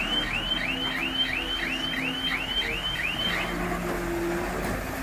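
Dump truck's warning alarm chirping, about three rising chirps a second, over a low rumble; the chirping stops about three and a half seconds in.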